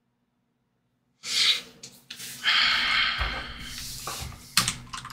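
A man breathing hard into a close microphone in frustration: a sharp intake about a second in, then a long hissing sigh, with a couple of short low thumps.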